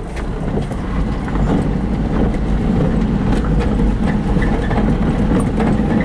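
A car driving slowly across a gravel parking lot, heard from inside the cabin: steady engine and tyre noise, a little louder after the first second.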